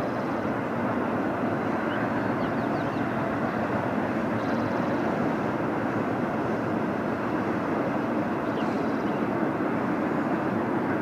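BNSF freight train rolling past: a steady rumble of steel wheels on the rails, with a few faint short squeals.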